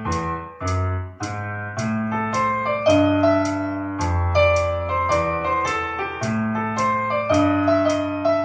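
Piano music: melody and chord notes struck a few times a second over held low bass notes.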